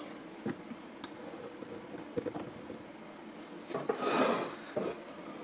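A few faint clicks and taps of a unibody MacBook's aluminium bottom cover as a hand presses it down into the case, with a brief rubbing rustle about four seconds in.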